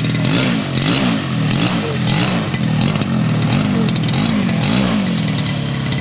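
Zenoah G-62 two-stroke gasoline engine of a large-scale RC Corsair model taxiing on grass. The throttle is blipped up and down about one and a half times a second, and the engine settles to a steady idle about five seconds in.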